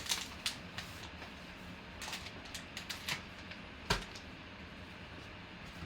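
Handling noises over a low steady hum: a string of short rustles and clicks, with one sharper knock about four seconds in.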